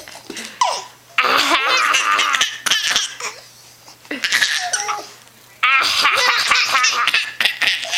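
A baby laughing in several loud bursts of giggles and belly laughs, separated by short pauses.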